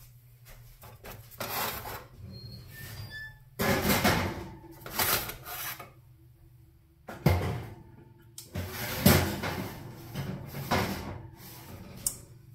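Metal baking sheets being handled at a kitchen oven: a string of clunks, knocks and scrapes of trays against the oven and its racks, the loudest about nine seconds in.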